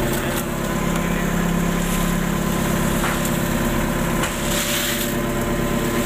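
Small boat engine idling steadily, a low even drone.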